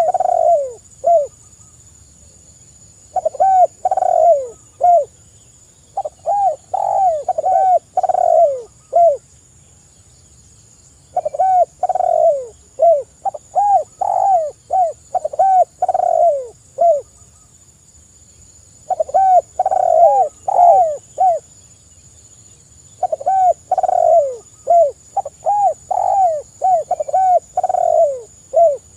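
Spotted doves cooing in repeated phrases of short, arched notes, each phrase one to several seconds long with pauses of about two seconds between. A faint steady high-pitched whine runs underneath.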